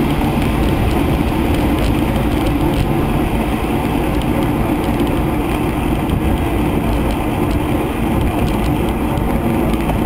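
Steady wind and road noise on a bicycle-mounted camera's microphone while riding at speed.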